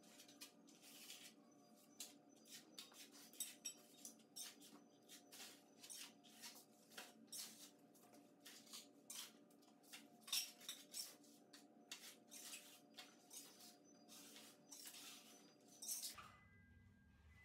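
Faint, repeated short scratching strokes of a hand tool scraping and rubbing a rough plaster patch smooth along a filled groove in a wall.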